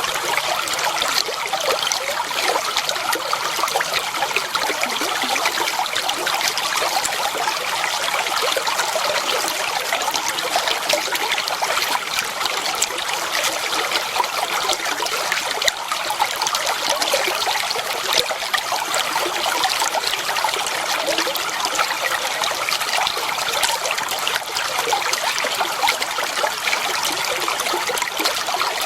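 Clear water flowing and trickling steadily, with a fine splashing crackle.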